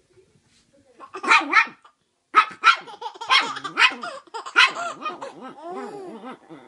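A chihuahua barking in short, sharp yaps, about seven of them, mostly in quick pairs, while a baby laughs; near the end the baby's giggles go on alone, rising and falling in pitch.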